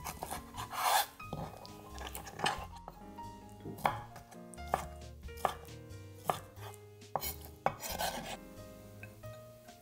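Kitchen knife chopping on a cutting board, irregular sharp strokes about once a second with a couple of longer scraping cuts, over soft background music.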